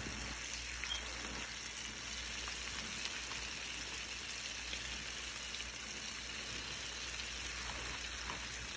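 Flour-dredged chicken wings shallow-frying in hot oil in a skillet: a steady sizzle with small pops here and there.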